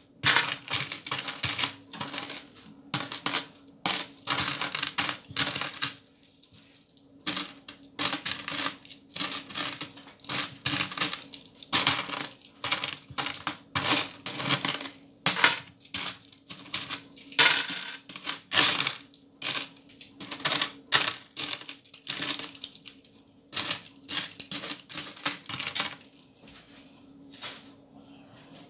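Loose coins clinking and jingling as hands rummage through a heap of small copper cent coins in a plastic tray and pick them out, in quick irregular clusters of clicks with a couple of brief pauses.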